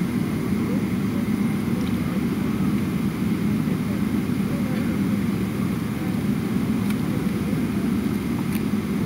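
Steady low rumble of airliner cabin noise heard from inside the cabin, with the jet engines running and the air system going.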